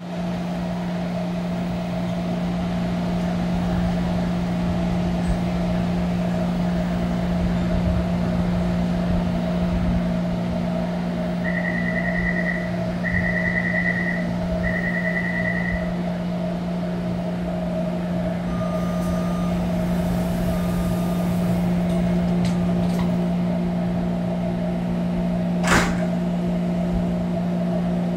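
Taipei Metro C321 train standing at an underground platform, its equipment giving a steady hum. Around the middle come three short high warning beeps for the closing doors, then two shorter, lower tones, and a single sharp knock near the end as the doors shut before departure.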